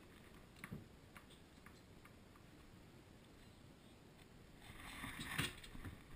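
Movement noise from a GoPro Hero 2 strapped to a dog: a few faint ticks, then, about five seconds in, a swell of rustling and one sharp knock as the dog shifts its footing on carpeted stairs.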